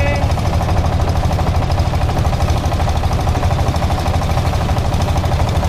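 Motorboat engine running steadily with a fast, even knocking beat, of the kind heard from the long-tail boats used on Inle Lake.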